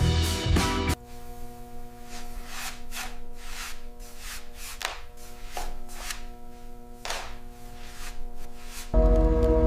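Background music: full and loud for about a second, then dropping to soft held notes with scattered light taps, and swelling back up near the end.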